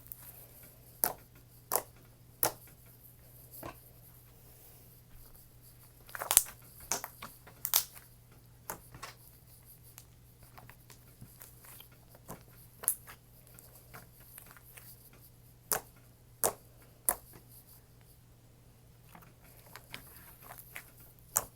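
Thick, glossy slime being squished and poked by hand, giving scattered sharp clicks and pops at uneven intervals.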